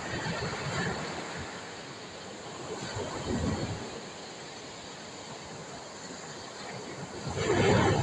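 Sea waves washing onto the beach, surging three times: once near the start, once about three seconds in, and loudest just before the end.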